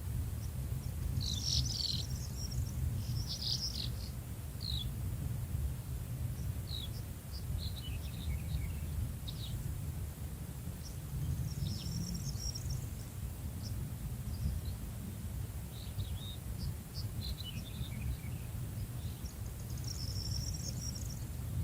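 Small birds chirping and calling in short, scattered phrases over a steady low rumble.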